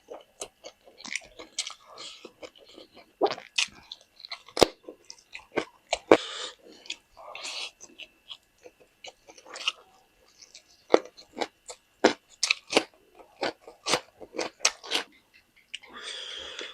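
A person chewing food with their mouth, with many short crunching bites and wet mouth clicks.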